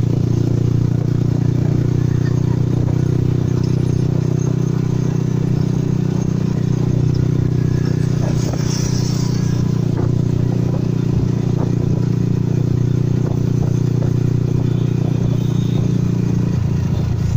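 Motorcycle engine of a passenger tricycle running steadily at an even cruising speed, heard from on board, with light rattles of the cab.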